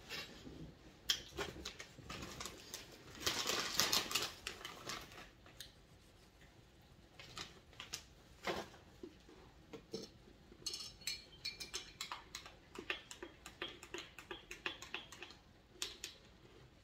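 Scattered light clicks and knocks of small objects being handled in a kitchen, with a longer rustling, clattering stretch about three to four seconds in and quicker clicking in the second half.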